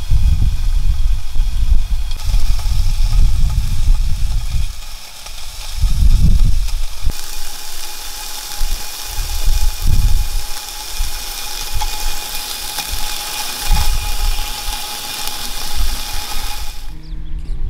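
Beef pieces sizzling in a frying pan on a small camping stove, over a low, uneven, gusting rumble. The sizzle comes in about halfway through and cuts off suddenly near the end.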